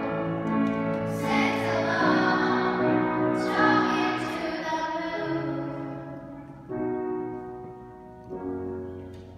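Children's choir singing with piano accompaniment, the voices ending about six and a half seconds in. Two piano chords follow, each struck once and left to ring and die away, as the song closes.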